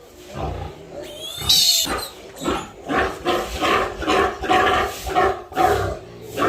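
Pigs grunting over and over, about two grunts a second, with a short high-pitched squeal about a second and a half in.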